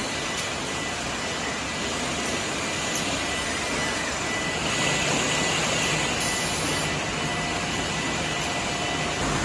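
Steady machine noise from the packaging end of a beer canning line, with conveyors and palletizing robots running, and a thin steady high whine that stops near the end. A small click about three seconds in.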